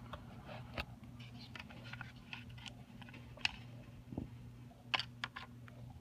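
Scattered light clicks and taps of a small screwdriver against the metal lock cylinder and the plastic door-handle housing as the cylinder's retaining tab is pushed down, over a low steady hum.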